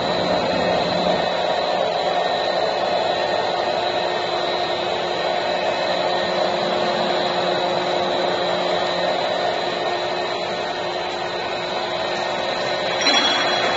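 Doritos-type corn chip extrusion line running: a steady whir of electric motors and fans with a thin, steady high whine. There is a brief louder swell near the end.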